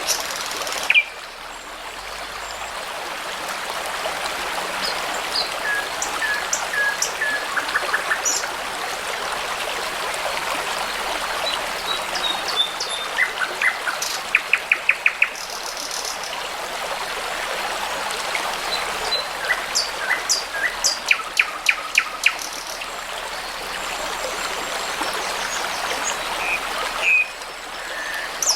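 Songbirds singing over a steadily babbling brook. Short chirps and whistled notes are scattered throughout, with rapid trills of repeated notes in the middle part. The water sound dips briefly about a second in and again near the end.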